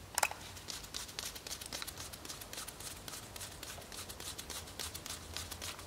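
Faint, irregular small clicks and scrapes of a screwdriver working a screw on a small pit-bike carburetor held in a gloved hand, with one sharper click just after the start.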